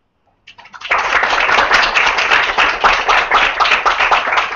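Audience applauding: scattered claps start about half a second in and quickly swell into steady, dense clapping.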